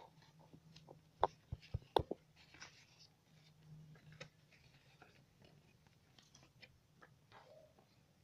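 Stiff craft paper being folded and handled on a tabletop: a few sharp taps and paper crackles in the first two seconds, then soft rustling and small faint sounds.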